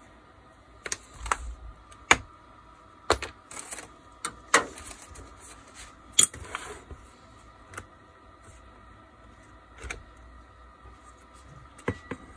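Scattered sharp clicks and knocks of a Bosch GWB 12V-10 cordless angle drill's plastic housing being handled and opened up, with a small part clinking into a metal parts tray about six seconds in.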